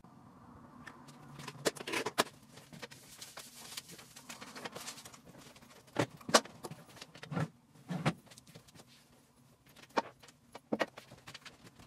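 Irregular clicks, clatters and rustling of small objects being handled and set down at a nail station, with the sharpest knock about six seconds in.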